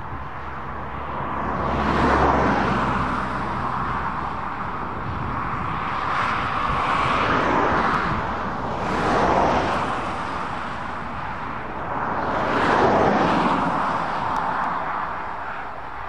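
New Holland T7070 tractor pulling a Grimme GT 170 S potato harvester at work: steady engine and machinery noise that swells and fades three times.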